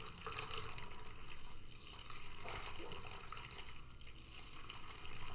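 Water being poured into the base of an evaporative humidifier, a steady splashing and trickling that swells and eases as it fills.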